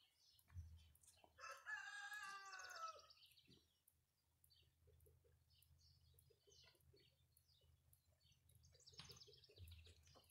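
A rooster crowing once, a single long call starting about a second and a half in, over a quiet background.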